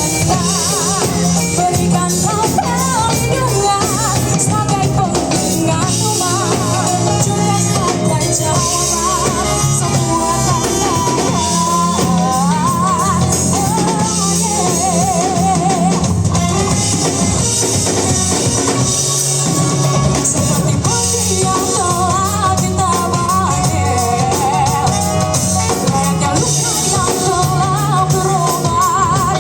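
Band playing a song: a lead singer over drum kit, bass and guitar.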